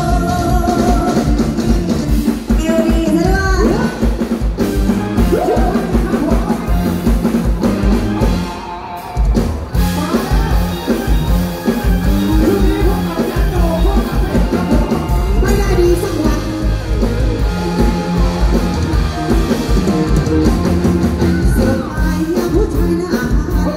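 Live band music amplified through a stage PA, with drum kit beat and a woman singing into a microphone; the music drops away briefly about nine seconds in before carrying on.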